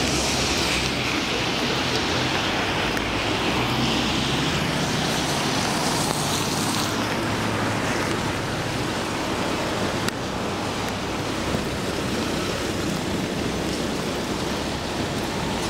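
Street traffic on a wet road: a steady hiss of tyres and engines, with a louder hiss for the first several seconds.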